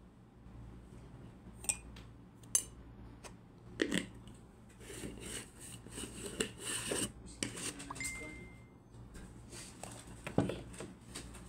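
Wooden spatula stirring shrimp in gravy in a nonstick pan: a few sharp knocks against the pan, with a stretch of scraping in the middle. A short high steady tone sounds briefly about eight seconds in.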